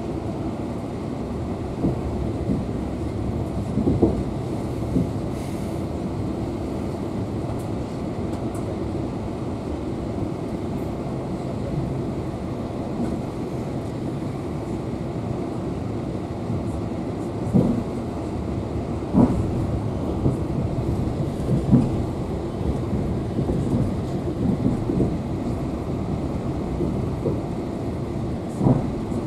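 Passenger train carriage running on the rails, heard from inside the coach: a steady rumble with a few sharp knocks from the wheels and running gear at irregular intervals.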